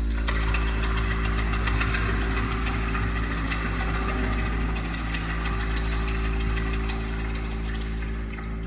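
Live stage percussion: a drummer's hand drum tapped lightly over a steady, heavy low drone with several held low notes.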